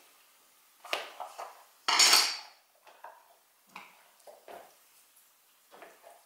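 A reusable silicone food bag being unsealed and opened by hand. There is a click about a second in, then a brief louder scraping clatter about two seconds in, then faint clicks and rubbing as the bag's top is pulled apart.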